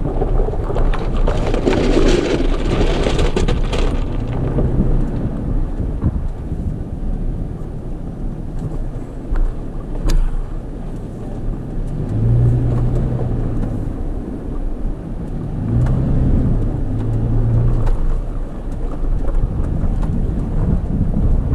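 Toyota FJ Cruiser's 4.0-litre V6 running as it drives slowly over a rough dirt trail, with a steady low rumble and wind on the microphone. The engine hum swells briefly twice, about halfway through and again about three-quarters of the way in.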